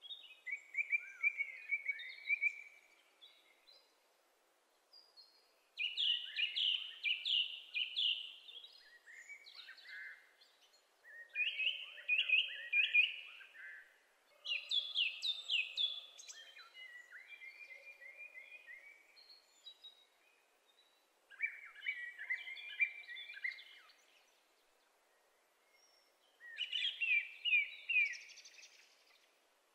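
Common blackbird singing: a run of short song phrases, each a couple of seconds long, with pauses of a second or more between them.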